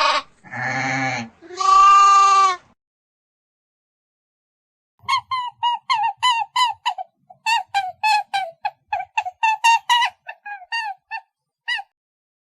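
Goat bleating three times. After a pause of about two seconds, a different animal gives a fast run of short, pitched calls, several a second, lasting about seven seconds.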